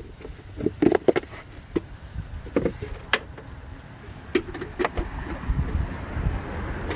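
Plastic engine air box lid being worked loose and lifted off, giving irregular light clicks and knocks of plastic over a low rumble.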